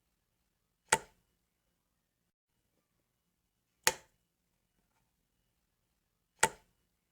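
A light switch clicking, three separate sharp clicks a few seconds apart.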